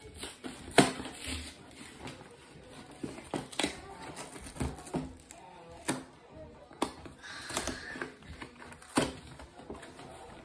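Cardboard gingerbread house kit boxes being unwrapped and handled on a table: plastic wrap crinkling and several sharp knocks as the boxes are moved and set down, the loudest about a second in.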